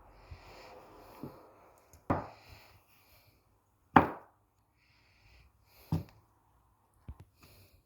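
Kitchen knife chopping down through modelling clay onto a hard board: four sharp knocks, roughly two seconds apart, the second the loudest.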